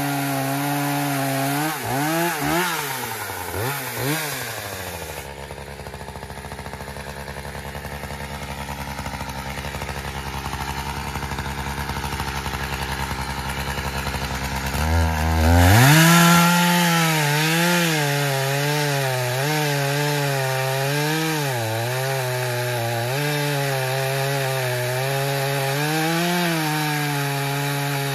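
Echo CS-590 Timber Wolf two-stroke chainsaw with a 24-inch bar cutting through poplar at full throttle. The engine pitch swings up and down a few seconds in, drops to idle for about ten seconds, then revs up sharply and bogs and recovers in a wavering pitch as the chain bites back into the log.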